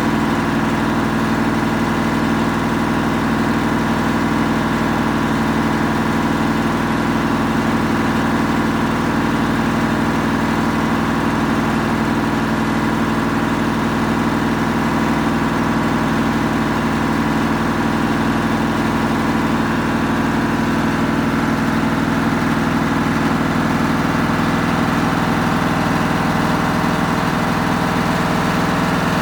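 Samsung EcoBubble washing machine running with a steady mechanical hum, unbroken throughout.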